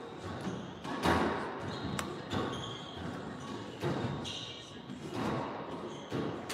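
Squash rally: the ball cracking off racquets and the walls about once a second, each hit ringing in the court, with short high squeaks of court shoes on the hardwood floor between hits.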